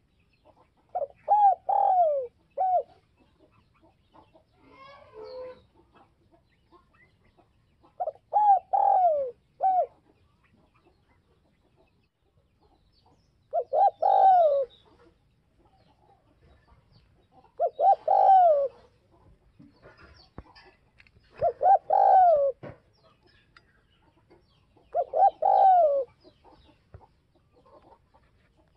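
Spotted dove cooing: six phrases of several low, falling coo notes, one about every four seconds. This is the call that keepers use to lure wild doves.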